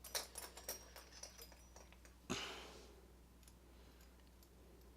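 Small metal lock parts clicking as a pin-tumbler lock cylinder is taken apart: a run of light clicks over the first two seconds, then one louder knock a little over two seconds in, then only a few faint ticks.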